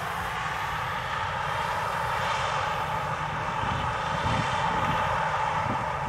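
Steady mechanical drone of a Claas Lexion 770 combine harvesting corn while unloading grain into a tractor-drawn trailer running alongside, growing a little louder toward the end.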